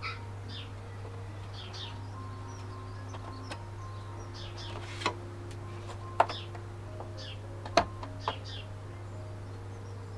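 Birds chirping repeatedly over a steady low hum and a faint background melody, with a few sharp clicks or taps about five, six and eight seconds in.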